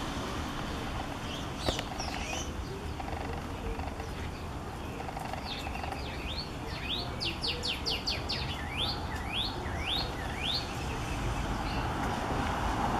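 Female northern cardinal singing: a few short notes, then about halfway through a series of steep slurred whistles that speed up into a rapid run and then slow again. A steady low rumble sits underneath.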